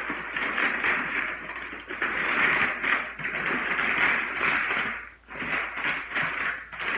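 Greasy butcher paper crinkling and rustling as it is pulled open around smoked beef short ribs lifted out with tongs: a steady crackle with brief lulls about five seconds in.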